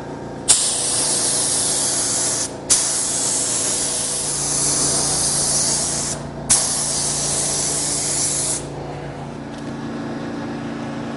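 Compressed-air gravity-feed spray gun spraying clear coat over the candy-red fender: three long hissing passes, each starting sharply, the last stopping about two-thirds of the way through. A lower steady hum runs underneath.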